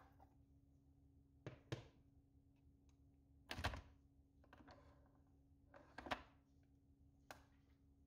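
Several short, soft knocks and clicks as a ceramic mug and the plastic body and top lever of a Nescafé Dolce Gusto capsule coffee machine are handled, the loudest about three and a half seconds in, over a faint steady hum.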